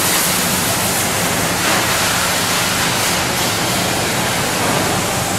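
Loud, steady hiss of pressure-washer spray and wash equipment in a car wash bay, with a low motor hum underneath.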